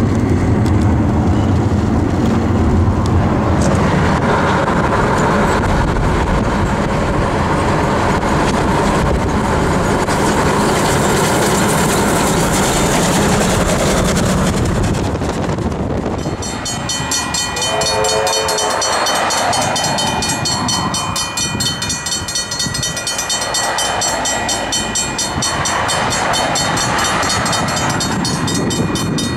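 NZR Ab class steam locomotive working along beside a moving car, its exhaust mixed with the car's road and wind noise. After a cut, a level crossing bell rings rapidly as the locomotive approaches, and it gives one whistle blast of about a second.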